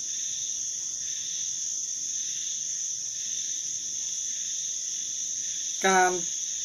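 Crickets chirring in a steady, high-pitched, unbroken drone.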